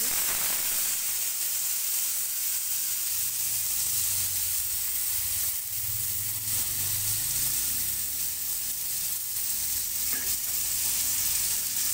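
Freshly ground spice paste hitting hot oil and sizzling loudly as it fries, the hiss starting abruptly at the start and holding steady. A spatula scrapes and pushes the paste around the pan now and then.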